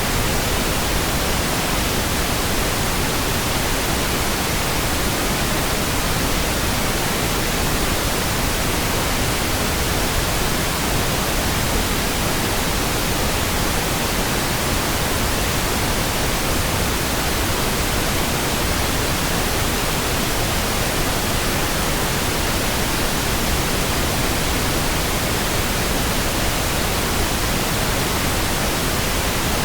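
Synthetic pink noise: a steady, even hiss across the whole range, unchanging in level.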